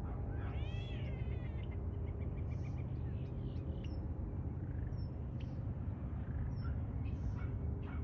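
European starlings calling: a drawn-out, meow-like mewing call that rises and falls, then a rapid run of short clicking pips and a few brief high chirps, the mix of whistles, mews and clicks typical of starling song.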